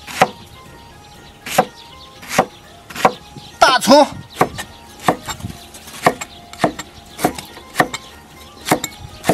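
Chinese cleaver chopping Chinese scallion stalks on a thick wooden chopping block: a string of separate knocks of the blade hitting the wood, about half a second apart.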